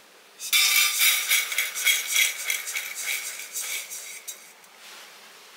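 Roasted wheat vermicelli tipped from a stainless-steel kadai into a steel plate: dry strands rattling and pattering onto the metal, with clinks and scrapes of steel on steel. It starts about half a second in and dies away near the end.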